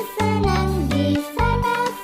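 Upbeat children's song with a sung melody over a bouncy, repeating bass line.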